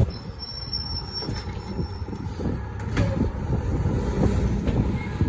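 McNeilus front-loader garbage truck's diesel engine running with a low, pulsing rumble as its hydraulic arm lifts a wheeled cart up over the cab, with a single sharp knock about three seconds in.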